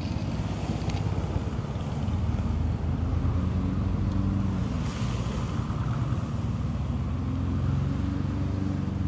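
Lawn mower's small engine running steadily, its pitch wavering slightly.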